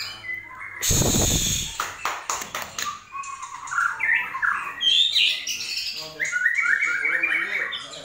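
White-rumped shama singing in its cage: runs of quick, repeated whistled notes and short rising phrases, getting busier after about four seconds. About a second in, a loud rushing noise lasts just under a second.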